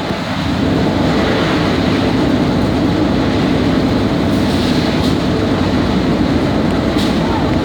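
Plastic bottle grinder machine running with a loud, steady mechanical rumble and hum. A few faint sharp ticks come through in the second half.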